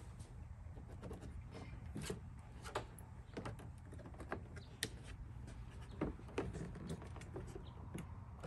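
Irregular light clicks and taps of a plastic hood protector being handled against the underside of a raised pickup hood while the fasteners are marked through its holes.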